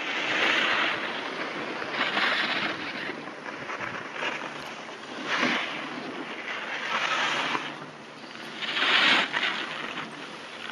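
Skis sliding and scraping across packed snow, a hissing scrape that swells every second or two as the skier turns.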